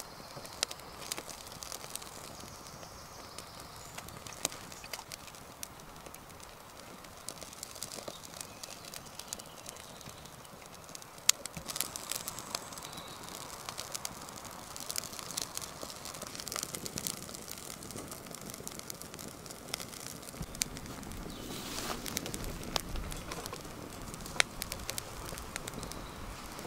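Wood fire crackling in a small steel Petromax firebox stove as shavings and kindling catch. The sharp pops come more often after about ten seconds, and there is a low rushing swell near the end as the flames take hold. Birds call in the background.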